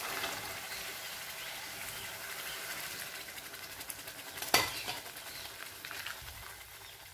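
Masala sizzling in a hot iron kadai as boiled chickpeas and their cooking water go in and are stirred with a steel spatula; the sizzle slowly dies down as the liquid cools the pan. One sharp clink of the spatula against the pan about four and a half seconds in.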